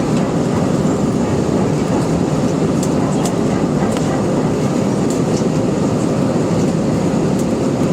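Steady loud roar inside an airliner cabin during takeoff, the jet engines running at high power with a continuous rumble, and a few faint light rattles.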